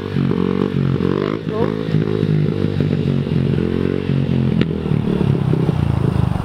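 Mini dirt bike's small single-cylinder engine running steadily, with a single sharp click about two-thirds of the way through.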